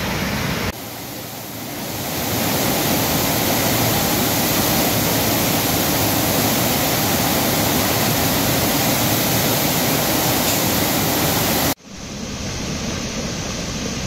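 Waterfall in full flood: a steady, heavy rush of falling and crashing water. It drops away about a second in and builds back up, then cuts off sharply near the end and comes back quieter.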